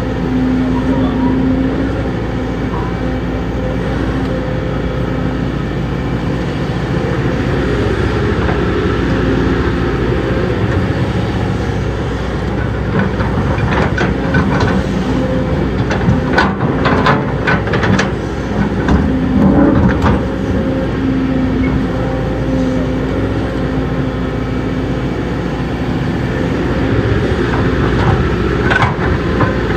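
Heavy diesel earthmoving machinery running steadily, with sharp metallic clanks and knocks clustered around the middle and again near the end.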